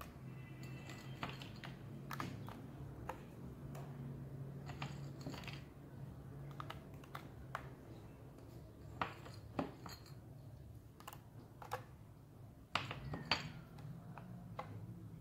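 Scattered small clicks and taps as raisins are dropped by hand onto cake batter in a glass baking dish, a dozen or so irregular ticks over a steady low hum.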